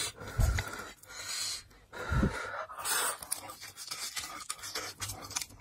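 Close-miked eating sounds from a person: several short breathy puffs and mouth noises, with a soft low thump about half a second in and again about two seconds in.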